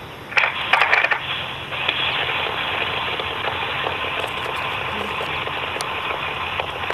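Steady crackling hiss from a TV news broadcast playing nearby, with a burst of loud clicks and crackles about half a second in and a few single clicks later.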